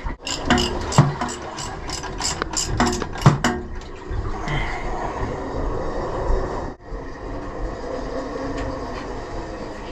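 Ratchet spanner clicking in a quick run of about a dozen strokes as the alternator bolts on the diesel engine are loosened to change a snapped fan belt, then a steady rushing background noise.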